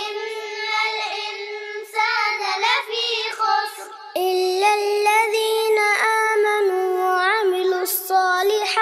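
A child's voice chanting Quranic verses in slow melodic recitation, with long held notes that waver in pitch. The chant runs in several drawn-out phrases with short breaths between them.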